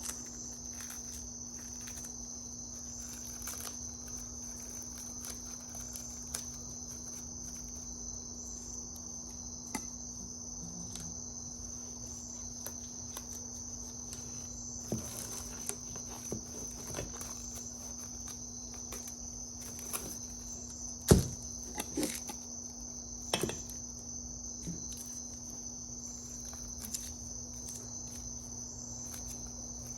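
Steady high-pitched trill of crickets, with a low hum underneath and scattered small clicks and taps; the sharpest knock comes about two-thirds of the way in.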